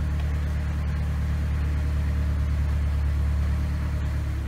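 The engine of a Thai longtail canal boat running at a steady speed: an even, low drone.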